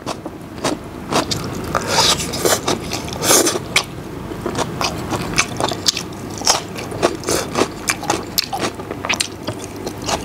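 Close-miked eating: a man chewing and biting mouthfuls of braised meat and cold dishes, with irregular wet smacking clicks. Chopsticks scrape through the food on the paper.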